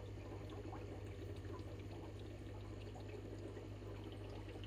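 Aquarium water trickling and splashing steadily, over a steady low hum.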